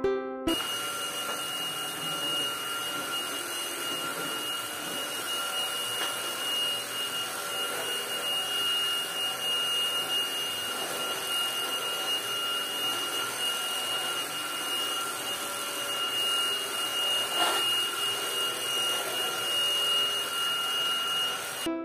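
Perysmith Xtreme Pro XP6 cordless stick vacuum running steadily with a high whine as its floor head is pushed over a wooden floor. It starts about half a second in and cuts off just before the end.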